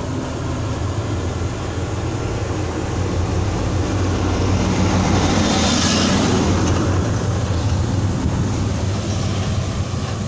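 Dump truck driving past close by: its engine drone grows louder, peaks with a rush of noise about five to six seconds in as it goes by, then fades.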